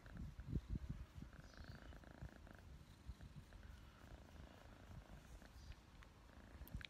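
Tabby kitten purring faintly while being scratched under the chin, with soft irregular bumps close to the microphone.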